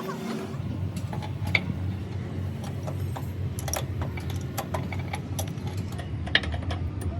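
A steady low mechanical rumble with many irregular sharp clicks and knocks.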